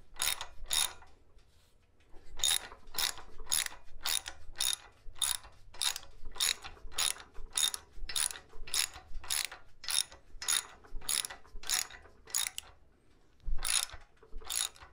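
Hand socket ratchet clicking on its return strokes, about two short runs of clicks a second, with a pause about a second in and another near the end. The ratchet is driving a bolt that screws a self-tapping threaded insert into a drilled hole.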